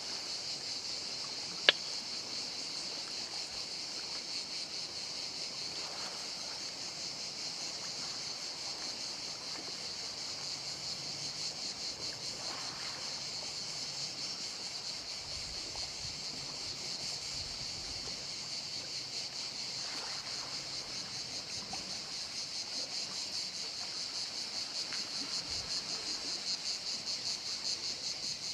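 Insects chirring steadily in a continuous high, rapidly pulsing drone, with one sharp click about two seconds in.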